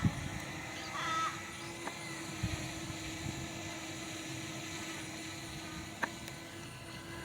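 An Australian magpie gives one harsh call about a second in, over the steady hum of a small quadcopter drone's propellers. There is a sharp click about six seconds in.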